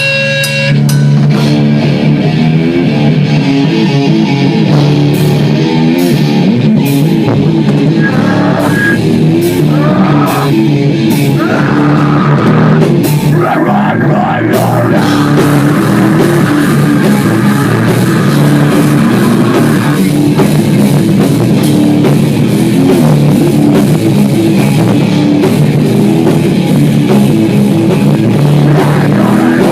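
Loud heavy metal song with a drum kit and guitars.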